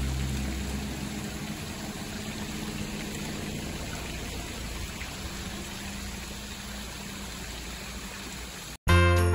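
Water from a tiered town-square fountain splashing and falling into its basin, a steady even wash. Soft background music fades out at the start, and near the end a sudden cut brings in bright music with bells.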